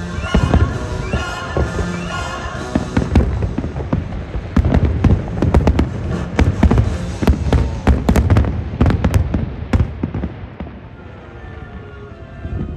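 A rapid barrage of fireworks bursts, sharp bangs and low booms one after another, over the show's music, thinning out about ten seconds in.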